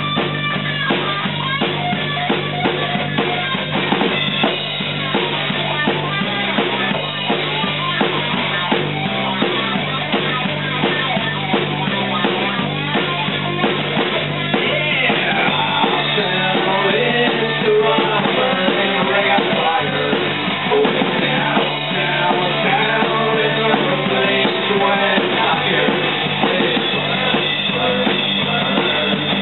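A rock band playing live: a drum kit with cymbals, an electric guitar, and a man singing into a microphone.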